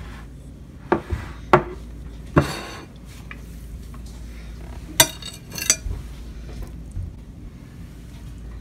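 Carving knife and fork clinking against a metal platter and a plate while roast turkey is carved and served: a handful of sharp clinks with a brief scrape between them.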